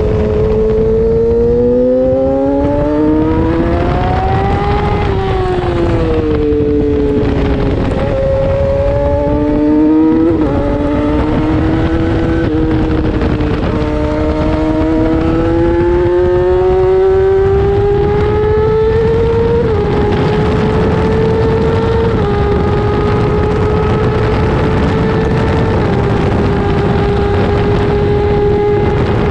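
Onboard sound of a 600cc racing motorcycle's engine under hard acceleration, its pitch climbing and then dropping sharply at each upshift, about seven shifts in all, before holding at high, nearly steady revs at full speed. Heavy wind rush and rumble underneath.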